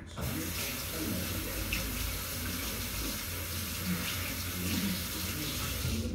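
Water running steadily from a tap, turned on just after the start and shut off near the end.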